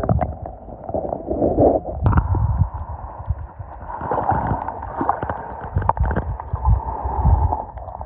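Muffled underwater sound picked up by a submerged camera: water swishing and gurgling, with irregular dull low thumps and a few sharp clicks.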